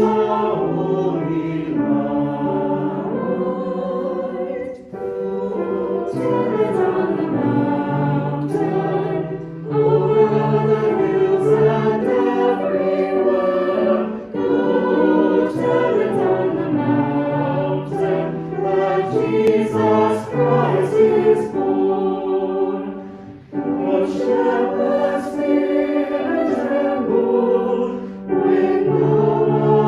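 Choir singing in sustained phrases of several voices, with short breaks between phrases every few seconds.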